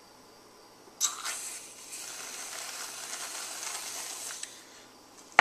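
Gas-charged whipped cream dispenser spraying cream out of its nozzle: a hissing spray that starts suddenly about a second in and stops about three and a half seconds later. A sharp knock comes right at the end.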